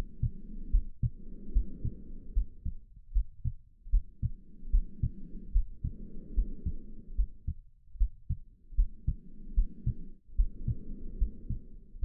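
A steady, low heartbeat thumping throughout, with slow breathing laid over it: each breath is a soft in-and-out whoosh that swells and fades about every four to five seconds.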